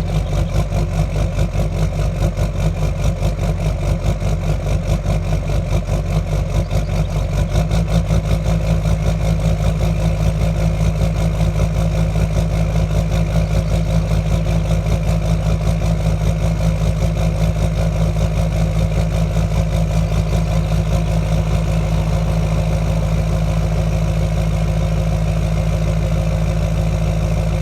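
LMM Duramax 6.6-litre V8 turbo-diesel idling. Its note changes about eight seconds in, then runs steadily.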